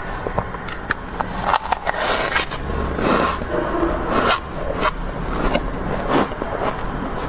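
A person eating loose freezer frost from a metal ladle, crunching it in irregular noisy bursts, with the ladle scraping into the frost on the freezer floor near the end.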